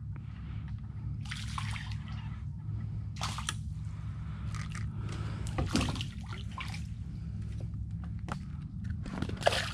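Small water sounds around a kayak: light splashes, drips and sloshing against the hull, several brief ones scattered through, over a low steady rumble.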